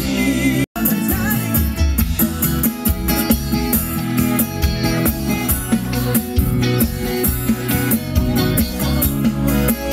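Live band playing loud amplified music with guitar and a steady drumbeat. The sound cuts out for a split second less than a second in.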